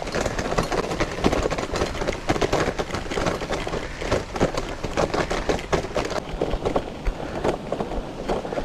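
Bicycle rattling and jolting as it is ridden over a bumpy trail: a dense, irregular clatter of knocks. The bike is not a mountain bike.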